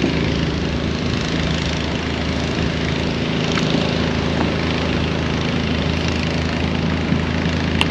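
Small camera drone hovering and flying low, its propellers giving a steady hum with an even pitch.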